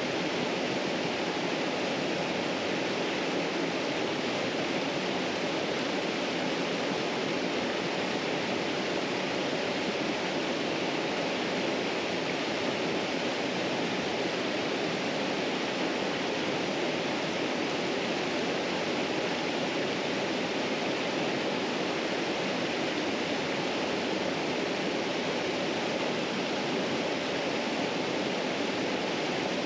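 Steady rush of white water from river rapids and a small waterfall, unchanging throughout.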